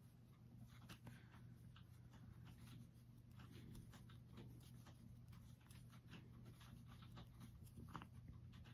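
Near silence: faint, irregular ticks and rustles of a metal crochet hook working aran yarn, over a low steady hum.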